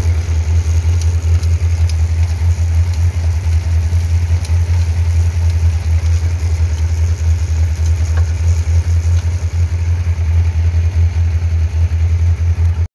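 Yamaha FZS1000's inline-four engine running steadily at low revs, with a few faint ticks. The bike is being checked for an abnormal chain noise, which was traced to a damaged disc-side wheel bearing, an over-worn sprocket, tight chain links and a missing chain-guide rubber.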